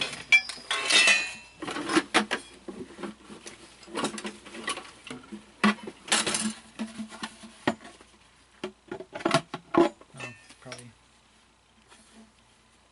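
Hard parts of a Halloween animatronic being handled during assembly: irregular clinks, knocks and rattles with some rustling, dying away about eleven seconds in.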